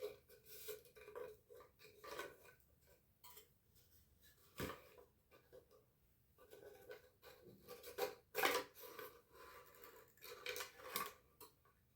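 Faint, irregular clicks, taps and scraping from small hardware pieces and laser-cut wooden parts being handled and fitted into a wooden model base. There is a busier run of taps about eight seconds in and again near ten to eleven seconds.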